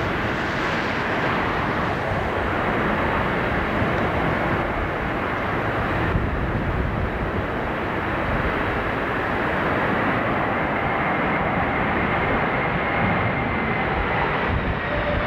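Boeing 767 airliners' twin jet engines on landing approach: a steady jet rush mixed with uneven low wind rumble on the microphone. The sound changes abruptly about six seconds in, and a faint high engine whine comes in during the second half.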